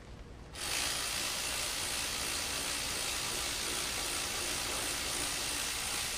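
A steady, loud hiss that starts abruptly about half a second in and cuts off suddenly at the end, even throughout with no pitch or rhythm.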